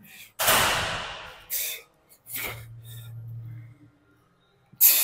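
A man's heavy, noisy breathing through a set on a gym fly machine: one long forceful exhale about half a second in, short sharp breaths, and a low held grunt of effort in the middle.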